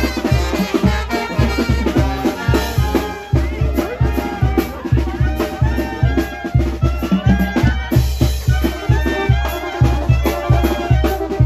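Live Mexican brass band (banda) playing a lively tune. Brass carries the melody over a steady, quick bass-drum beat.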